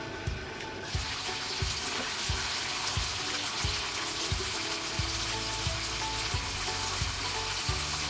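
Bone-in chicken drumsticks deep-frying in oil in a cast-iron pot: a steady sizzle that gets much louder about a second in, when the lid comes off, and then holds.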